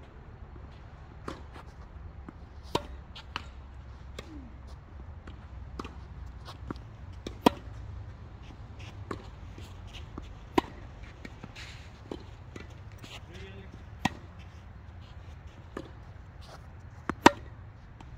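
Tennis singles rally: sharp pops of the ball off racket strings and off the court, one every one to two seconds, ending with a loud pair of hits close together.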